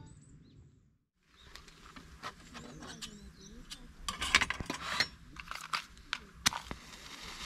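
A music track fades out in the first second; then light metallic clicks and taps as a folding metal stove stand is fitted around a can of solid fuel, the sharpest click near the end.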